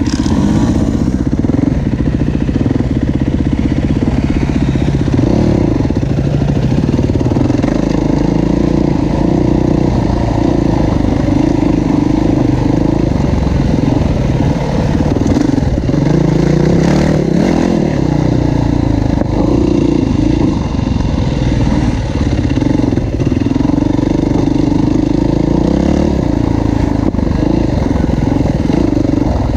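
Yamaha WR450F dirt bike's single-cylinder four-stroke engine running under way on a dirt trail, its note rising and falling with the throttle.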